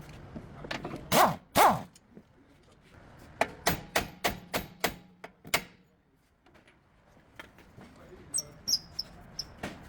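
A series of about seven sharp hammer blows on metal, roughly three a second, each with a short ring. Just before them come two loud cries with sliding pitch, and short high chirps are heard near the end.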